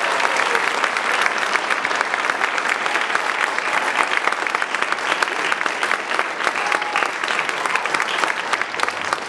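Audience applauding, a dense patter of many hands clapping that slowly eases off toward the end.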